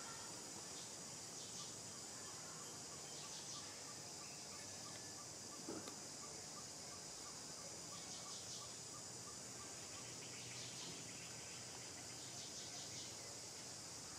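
Outdoor insect drone: a steady high-pitched buzzing that swells in short pulses, with a faint regular chirp about three times a second through the first half. A short low knock comes a little before the middle.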